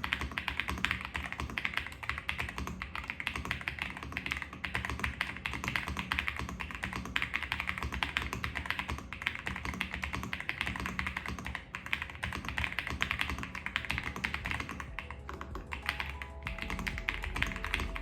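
Fast typing on a Royal Kludge RK R65 65% gasket-mount mechanical keyboard: a dense stream of clacky keystrokes, with background music underneath. The keystrokes thin out near the end, leaving the music.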